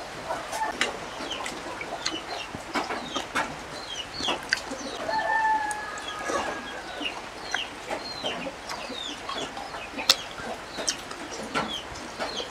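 Chickens clucking and calling with many short chirps, and a longer drawn-out call about five seconds in. Close, sharp mouth clicks and smacks of eating by hand come in between.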